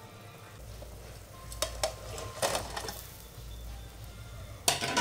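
Clinks and clatter of a pot and kitchen utensils: two short clicks, a brief clatter, then one louder knock near the end, over a low steady hum.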